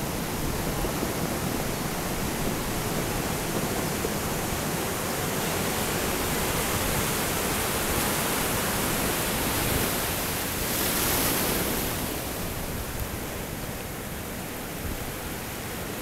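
Pacific Ocean surf breaking and washing up the beach: a steady rush of foaming water that swells about eleven seconds in and eases near the end.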